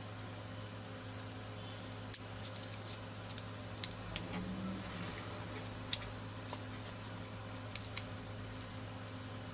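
Scattered light clicks and ticks of small parts being handled: paper slot insulators being fitted into a blender armature, over a steady low hum.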